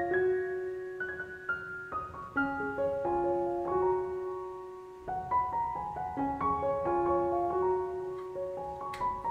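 Background piano music: gentle runs of notes stepping upward, repeated phrase after phrase.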